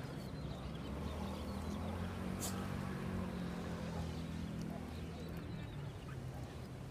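A motor vehicle passing: a low engine hum that builds from about a second and a half in and fades after about five seconds, with one sharp click midway.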